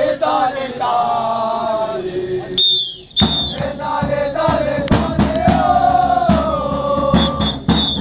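A group of football supporters chanting in unison. A whistle sounds about two and a half seconds in, then a drum starts beating under the chant.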